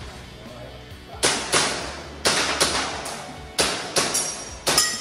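Airsoft pistol shots fired in quick pairs, about a third of a second apart, eight sharp cracks in all. Near the end comes a short metallic ring.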